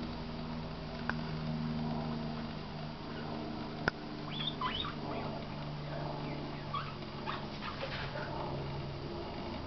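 A few short, high-pitched animal whines, over a steady low hum, with a couple of sharp clicks.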